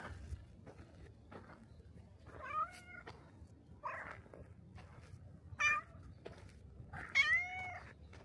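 Domestic cat meowing four times, short calls a second or two apart, the last one longer and louder.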